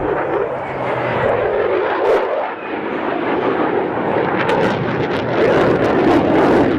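Jet engine noise from two fighter jets, an F-16 and a MiG-29, manoeuvring overhead: a loud, steady rushing noise that swells slightly in the second half, with a few short sharp clicks in between.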